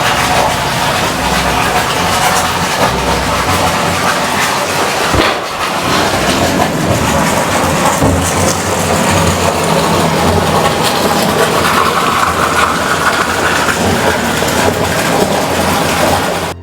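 Steady, loud engine and rumbling noise, like a moving vehicle, with a brief dip about five seconds in.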